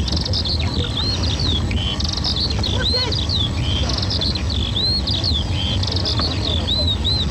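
Small birds chirping in quick, repeated arched calls, over a steady low rumble.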